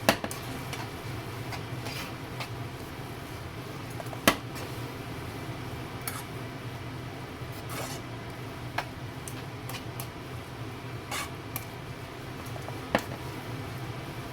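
Kitchen utensils knocking and clinking against pots and dishes while cooking, as scattered sharp knocks with gaps of a few seconds, over a steady low hum.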